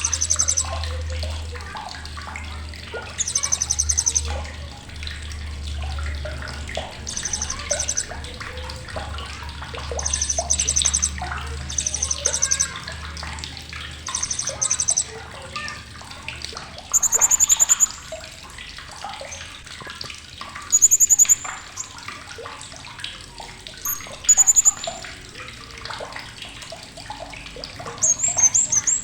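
Blue-crowned hanging parrot (srindit) giving sharp, very high, rapid trilled chatters, each about a second long and repeated many times. In the second half these give way to a few shorter, shrill single notes over a clutter of faint background chirps and clicks.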